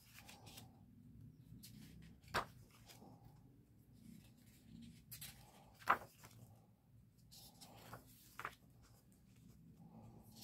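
Pages of a large softcover art book being turned by hand: quiet paper rustling and sliding, with a sharp snap of a page about two and a half seconds in, another near six seconds, and a lighter one near eight and a half.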